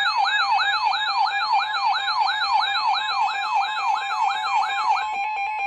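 Emergency alert sound: a steady electronic alert tone under a siren that sweeps up and down about three times a second. About five seconds in, the sweeps stop and the steady tone carries on, pulsing rapidly.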